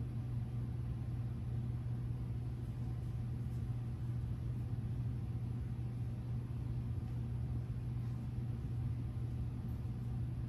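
Steady low mechanical hum with a faint even hiss: the running noise of the hall's fans or ventilation.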